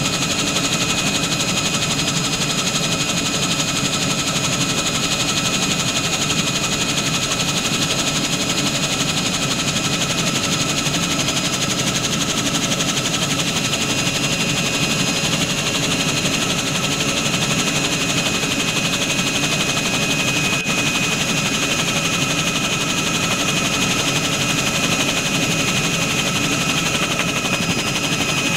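Bell 47 helicopter in flight, heard from on board: a loud, steady, rapid mechanical chatter from the piston engine and rotor, with steady high-pitched tones over it.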